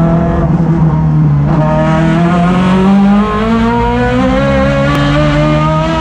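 Chevrolet STC2000 touring car engine, loud from inside the cockpit, pulling hard with its pitch climbing. About three seconds in the pitch drops at a gear change, then climbs again.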